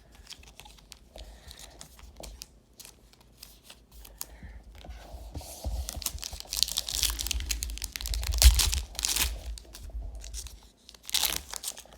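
The wrapper of a 2017 Panini Select football card pack being torn open and crinkled. It starts about five seconds in, after a few faint clicks, and comes again briefly near the end.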